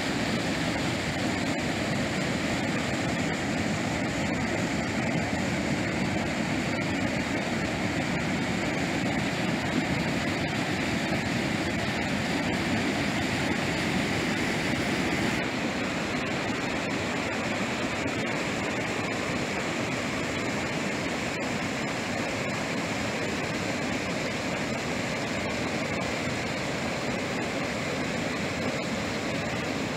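Mrežnica river water rushing steadily over a low cascade across the river. A little past halfway the rush turns slightly quieter and duller.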